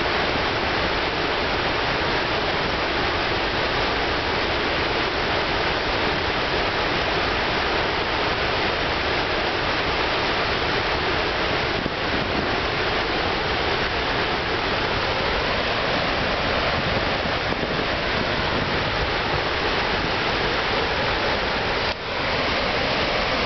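Androscoggin River's Great Falls in flood: a steady, loud rush of high, fast water pouring over the falls.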